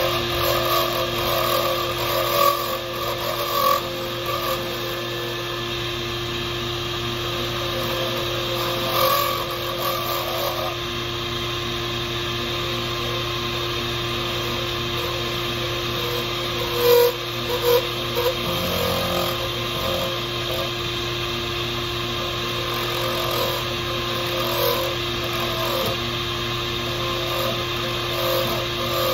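Small lathe motor running with a steady hum while a deer antler pen blank is worked on it, with a shifting scraping sound and a few brief louder bumps.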